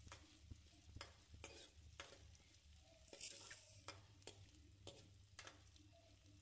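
Faint stirring of chopped onion, garlic and ginger frying in oil: a steel spoon scrapes and taps against the pan about twice a second over a faint sizzle.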